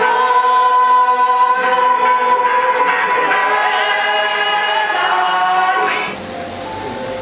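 A crowd of pilgrims singing a hymn together, unaccompanied, in long held notes. The singing stops about six seconds in, leaving a quieter hiss.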